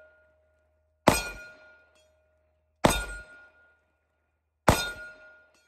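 Three pistol shots from a Smith & Wesson Shield Plus, about two seconds apart, each followed by the ringing clang of a steel plate target, fading over about a second.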